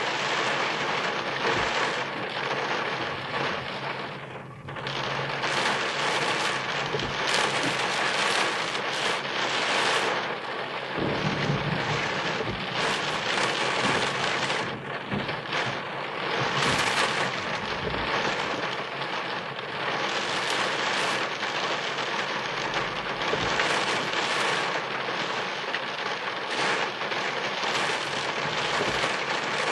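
Heavy rain drumming steadily on a car's roof and windscreen, heard from inside the car during a thunderstorm, with a low rumble of thunder about eleven seconds in.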